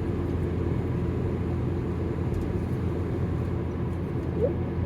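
Steady low road and engine rumble inside a moving car's cabin. A brief rising squeak comes near the end.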